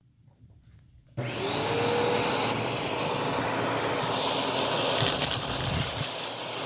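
Vacuum cleaner switched on about a second in, its motor rising briefly in pitch and then running steadily. From about five seconds in, coins rattle and clatter as they are sucked up through the nozzle.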